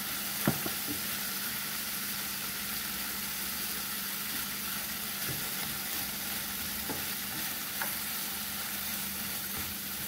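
Beef pieces and sliced onion sizzling steadily in oil in a skillet while a spatula stirs them, with a few sharp clicks of the spatula against the pan, the loudest about half a second in.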